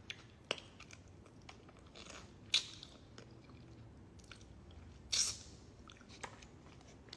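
Close-miked chewing and mouth smacking while eating boiled seafood. There are many small wet clicks, with two louder crunchy bursts about two and a half and five seconds in.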